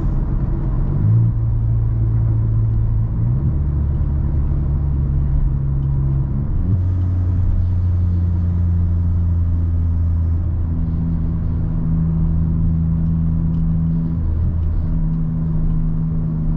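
Stage 1-tuned Volkswagen T-Cross 1.0 TSI turbo three-cylinder cruising at highway speed, its exhaust running open after the catalytic converter. Heard from inside the car as a loud, steady drone whose pitch shifts in steps a few times.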